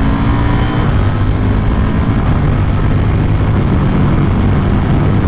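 KTM RC8R's V-twin engine pulling hard under acceleration as the rider upshifts with the quickshifter, over heavy wind noise from riding at speed.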